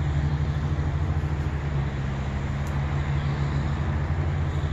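Steady low drone of road traffic, an even rumble with no separate events.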